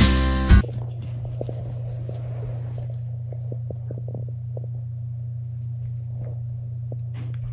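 Jingly music cuts off within the first second, leaving a steady low hum with faint, scattered soft taps.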